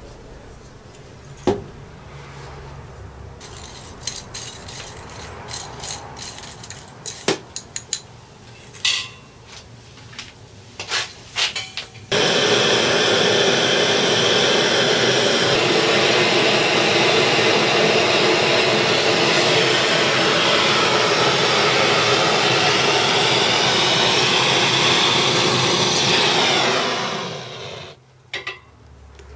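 A few sharp knocks and clicks of small tools and objects being handled. About twelve seconds in, a gas torch starts suddenly with a loud, steady rushing hiss as it melts metal in a casting crucible, then dies away a second or two before the end.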